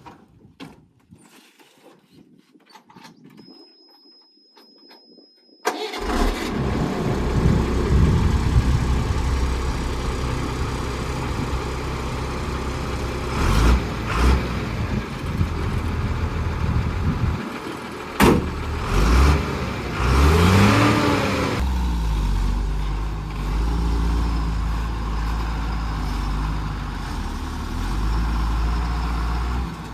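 Heavy diesel engine of the backhoe loader or a truck. It starts loud and abruptly about six seconds in, after a quiet stretch with faint clicks, and runs under varying load with a few sharp knocks. About two-thirds through it revs up and down, then settles into a steadier low running.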